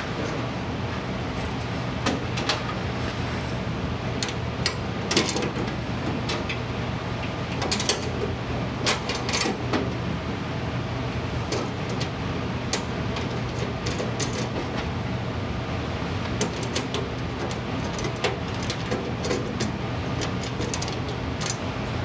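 Scattered clicks and light metal knocks from hand work on small parts, over a steady low hum.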